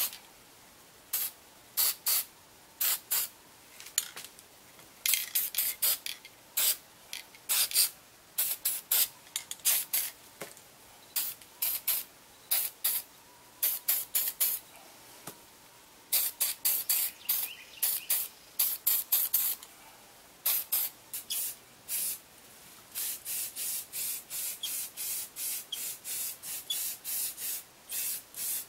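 Rust-Oleum aerosol spray paint can sprayed in many short hissing bursts, coming faster and more evenly toward the end at about two a second.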